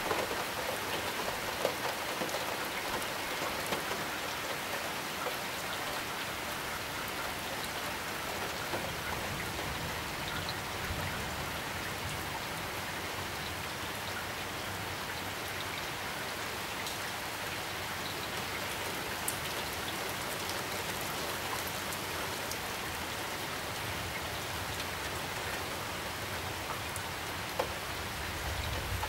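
Heavy rain falling steadily in a summer downpour, a dense even hiss of rain with a few sharper drop ticks here and there.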